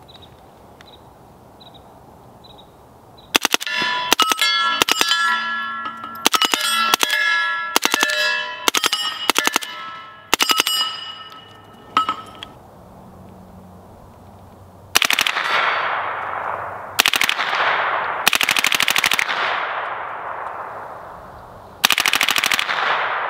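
A fully automatic firearm fired in short rapid bursts: about a dozen quick bursts over some nine seconds, with a metallic ringing over them, then after a pause four longer bursts, each trailing off in an echo.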